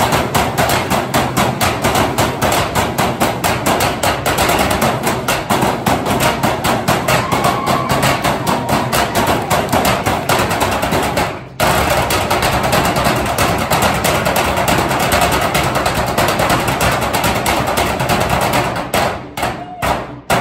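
Metal trash cans and a snare drum struck with drumsticks by three drummers in a fast, dense rhythm of sharp metallic hits. The playing stops dead for a split second about halfway through, then resumes, and breaks into spaced, accented hits near the end.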